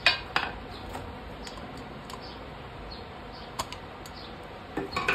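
Two sharp hammer taps on a rocker-arm pin in a TVS Sport motorcycle cylinder head, followed by scattered small metallic clicks as the pin is pushed home with pliers, with a few more clicks near the end.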